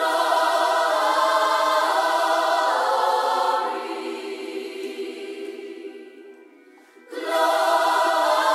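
Music of sustained, choir-like voices holding chords. It fades down from about three seconds in and comes back in suddenly near the end.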